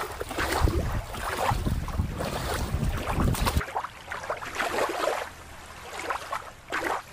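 Wind buffeting the microphone over shallow water lapping and splashing at the shore. About three and a half seconds in, it cuts abruptly to a quieter, thin background hiss.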